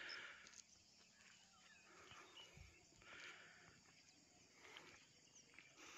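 Near silence: faint outdoor background with a few soft, indistinct sounds.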